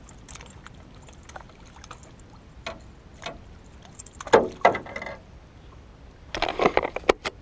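Clicks, knocks and rattles of a largemouth bass being unhooked with pliers and handled in a small boat, with louder clusters of knocking and rattling about four and a half and six and a half seconds in.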